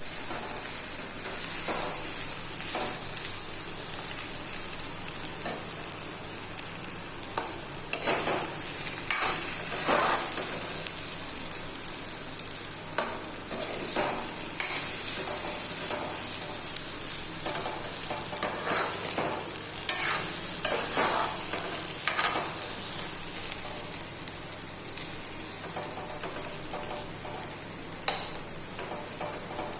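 Potatoes frying in hot oil in a pan, sizzling steadily with a high hiss, while a spatula stirs and scrapes them every few seconds.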